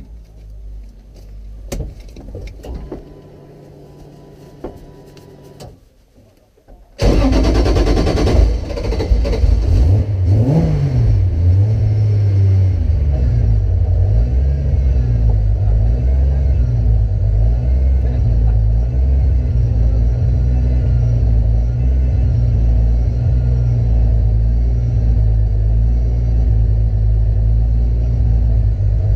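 Light clicks and handling noises, then about seven seconds in the Toyota GT86 drift car's engine starts abruptly, revs once and settles into a loud idle that wavers in pitch, heard from inside the cabin.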